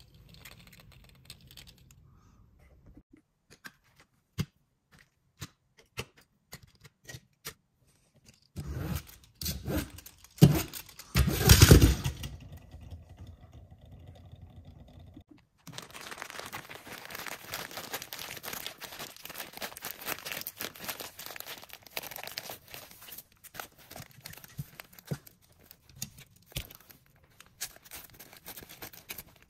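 Scattered light clicks and taps of small toy trucks on a tabletop, a louder clatter near the middle, then a long stretch of plastic crinkling and rustling as clear plastic sheeting and a plastic bag are handled.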